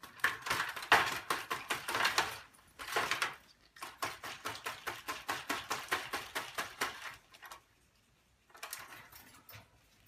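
Rapid run of sharp clicks or taps, several a second, that stops about three-quarters of the way through and resumes briefly near the end.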